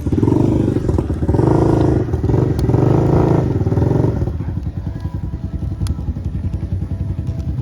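Motorbike-type engine running close by, loud and revving unevenly over the first four seconds, then settling to a steadier, lower running.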